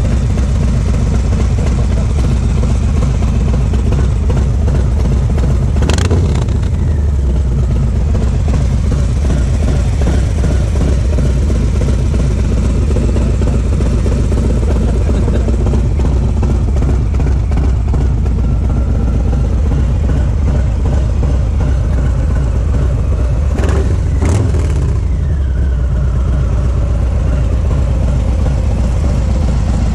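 2020 Harley-Davidson Low Rider S's Milwaukee-Eight 114 V-twin idling steadily through a Red Thunder 2-into-1 exhaust. It gets two brief revs that fall back to idle, about six seconds in and again around twenty-four seconds in.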